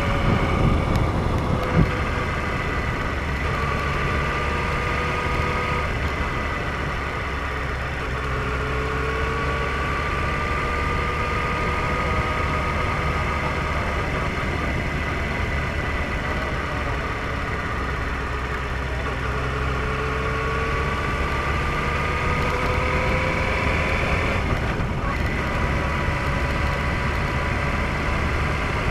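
Motorcycle engine running on the road at cruising speed, with wind and road noise over it; the engine note slowly rises and falls as the speed changes.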